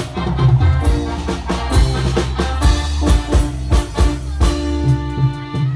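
Live Indonesian reog band music: kendang hand drums beating a steady rhythm under an electronic keyboard melody.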